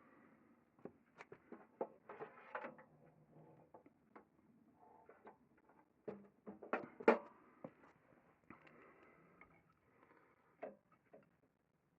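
Faint handling noises: irregular clicks, knocks and rustling as equipment is moved about, with the loudest knock about seven seconds in.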